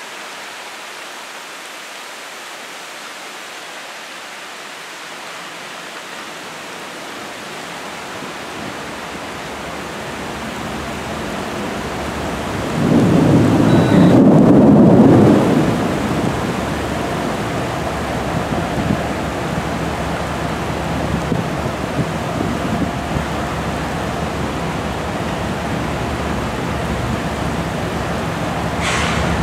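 Steady rain during a thunderstorm, with a loud clap of thunder about 13 seconds in that lasts about three seconds, then a steady low rumble under the rain.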